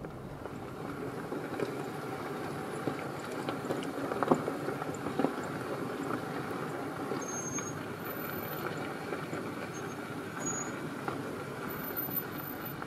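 A vehicle running steadily along a rough gravel track, with a few sharp knocks about four to five seconds in.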